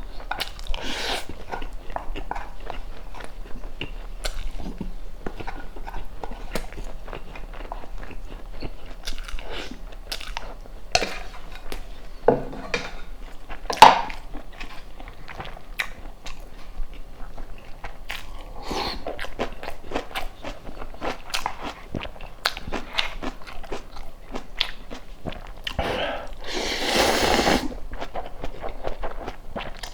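Close-miked eating: biting and chewing a rice burger, with many small wet mouth clicks. A sharp louder click comes about 14 seconds in, and a longer noisy burst near the end.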